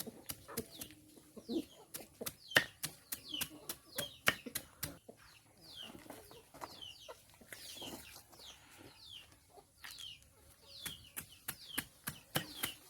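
Chickens feeding, with many sharp irregular taps of beaks pecking at the feed, and frequent short calls that fall in pitch.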